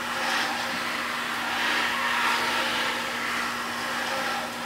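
BMW M54 straight-six crankshaft being turned over slowly by hand from the front crank bolt: a soft swishing that swells and fades in slow waves, with no clicks or knocks, as the rebuilt engine's rotating assembly and new oil pump turn freely without binding. A steady low hum runs underneath.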